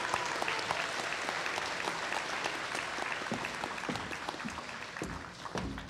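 Audience applauding, dense clapping that thins out and fades near the end, with a few low thumps as it dies away.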